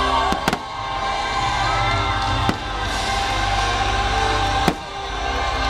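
The fireworks show's music soundtrack playing loud over park speakers, punctuated by sharp firework bangs: two in quick succession about half a second in, one at about two and a half seconds, and one near the end.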